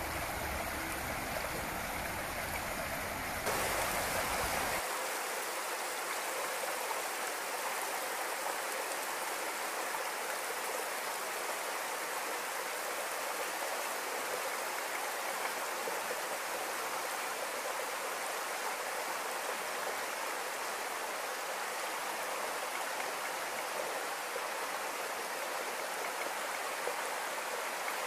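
Shallow creek running over a bed of stones and pebbles: a steady rushing trickle, with a low rumble under it for the first few seconds.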